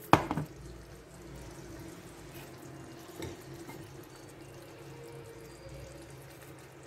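A sharp knock right at the start, the loudest sound, then a lighter tap about three seconds in, from handling the seasoning box and aubergines at the tajine. Under them runs a faint steady hiss with a low hum.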